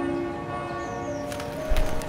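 Church bell ringing, its long tones hanging on and overlapping, a new tone sounding about a second in. A short thump with clicks near the end is the loudest moment.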